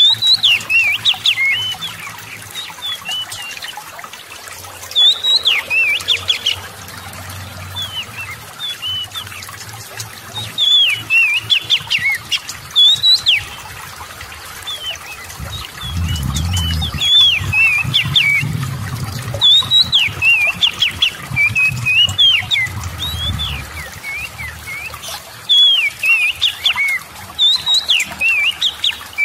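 Oriental magpie-robin singing: short, rapid phrases of whistled notes that sweep up and down, repeated every second or two, over a steady trickle of water. A low rumble runs for several seconds in the second half.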